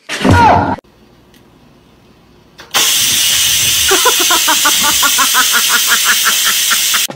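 A brief loud cry near the start. Then, about two and a half seconds in, an electric pressure rice cooker venting steam: a loud continuous hiss with a pulsing of about five beats a second.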